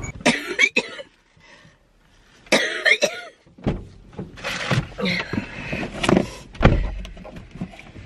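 A woman with cystic fibrosis coughing hard inside a car, in several separate fits with a longer run of coughs in the second half. There is a dull low thump near the end.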